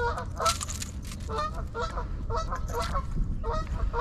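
Geese honking repeatedly, short calls about two a second, over a low steady rumble.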